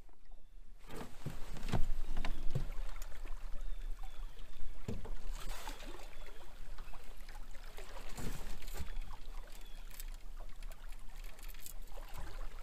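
River water lapping and splashing against a small fishing boat's hull, with scattered irregular knocks and clicks.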